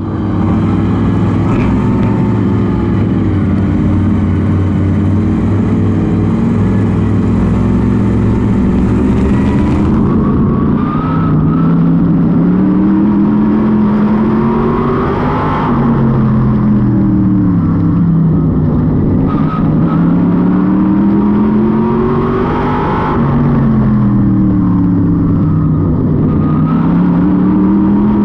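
Onboard sound of an NHSTRA modified race car's V8 engine at racing speed. It runs fairly steadily for about the first ten seconds, then the revs climb down each straight and fall away into each turn, about every seven or eight seconds.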